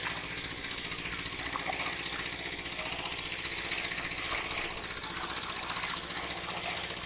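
A small engine running steadily with an even low throb, with water sloshing around legs wading through shallow muddy water.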